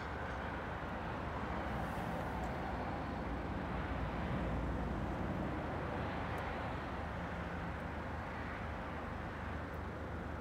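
Steady outdoor street background noise: a low rumble of traffic with an even hiss over it, swelling slightly about four seconds in.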